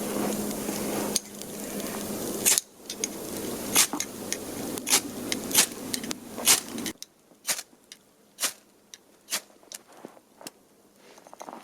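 Dry wood cracking and snapping in sharp, irregular cracks, over a steady rushing noise that drops away a little past halfway, leaving scattered single cracks.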